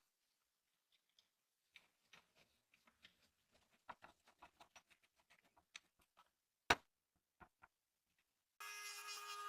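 Scattered light clicks and taps, with one sharper click about seven seconds in; near the end a steady buzzing with a held pitch starts abruptly.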